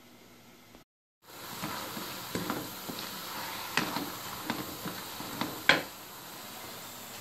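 Chopped saag greens sizzling in an aluminium karahi as a wooden spoon stirs them, knocking against the side of the pan about ten times; the loudest knock comes about two-thirds of the way through. The sizzle is the released water cooking off the greens.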